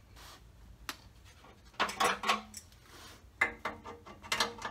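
Metallic clinking and scraping as the new Bosch wideband O2 sensor is screwed and tightened into the exhaust pipe's oxygen-sensor port, in a short click and then three separate bursts.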